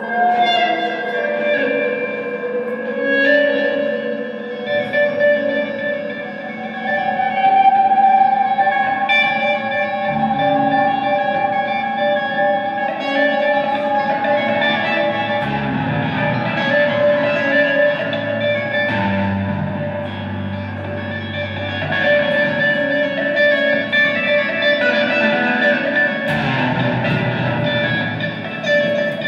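Two electric guitars played through effects pedals, layering long held notes with echo. A deeper held note comes in about two-thirds of the way through.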